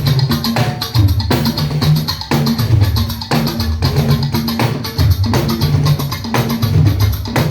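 Live band music in a sound check: drums and percussion playing an even, driving rhythm over a repeating deep bass line.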